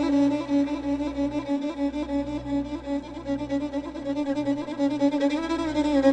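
Music: a violin-like bowed-string note held steadily on one pitch.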